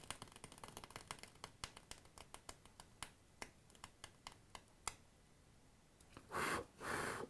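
Faint small clicks, quick at first and thinning out over about five seconds, followed by a short soft hiss near the end.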